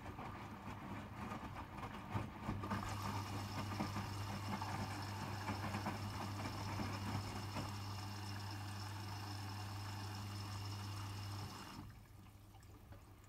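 Hotpoint WMFUG 942 washing machine during its rinse cycle: water rushing through the machine with a steady electrical hum, both stopping about twelve seconds in.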